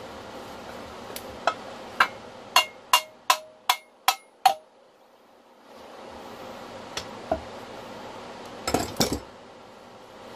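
A run of about nine sharp hammer blows on a Honda FL350 two-stroke engine's crankcase, two or three a second, each with a short metallic ring, knocking the case halves apart. Near the end comes a brief clatter of metal tools set down on the bench.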